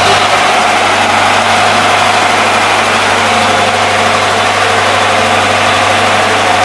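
Biogas-fuelled engine-generator set running at a steady speed: a loud, even engine drone with a constant low hum that does not change.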